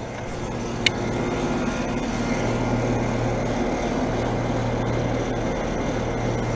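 Outdoor heat pump units running with a steady low mechanical hum, with a single short click about a second in.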